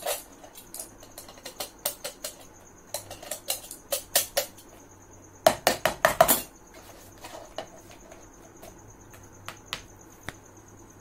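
Knife cutting a hole through a plastic container lid: irregular clusters of sharp clicks, scrapes and snaps as the blade works through the plastic, loudest about five and a half to six and a half seconds in.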